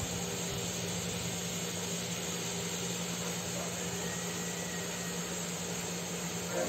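Steady hiss with a low, steady hum underneath, like a machine or fan running in the background.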